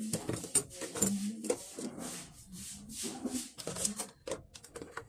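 Rubbing and scraping with scattered small knocks and clatters, from objects being handled close to the microphone.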